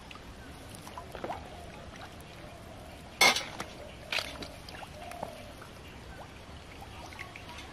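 Pond water splashing and trickling around a small hand lift net on a bamboo pole. A sharp splash comes about three seconds in, with a smaller one about a second later.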